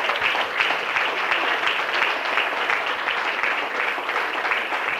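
Audience applauding, many people clapping at a steady level.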